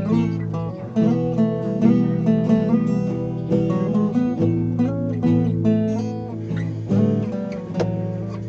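Acoustic guitar playing: strummed chords underneath with quick picked single notes running over them, a new guitar being tried out.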